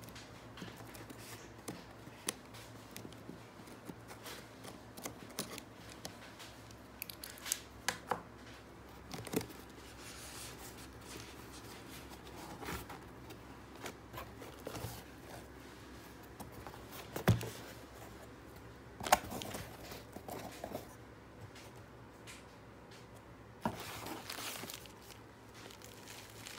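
A utility knife slitting packing tape on a cardboard box, then the box's flaps being pulled open and handled, with scratchy rustles and a couple of sharp knocks. A longer stretch of rustling near the end, as the bubble-wrap packing inside is handled.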